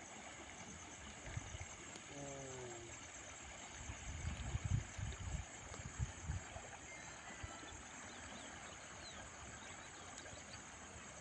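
Steady rushing hiss of a river in flood, with a high, steady insect chirring over it. A short pitched call sounds about two seconds in, and a few low thumps hit the microphone between about four and six and a half seconds.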